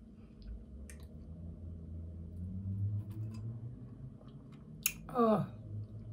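Mouth sounds of sipping wine: a few small lip clicks and smacks, then a sharp smack and a quick falling 'mmm' of enjoyment about five seconds in, over a low steady rumble.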